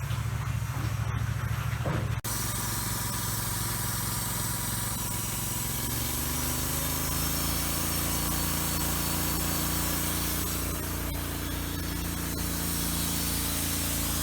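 Sawmill machinery running with a steady engine drone; it breaks off abruptly about two seconds in, then the engine pitch climbs about six seconds in and holds steady.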